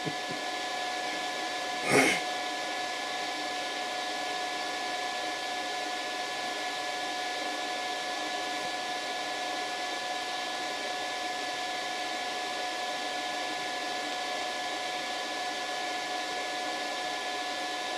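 Steady fan whir with a few faint steady whine tones, from a power inverter running under a load of about 22 amps. A brief loud noise cuts in about two seconds in.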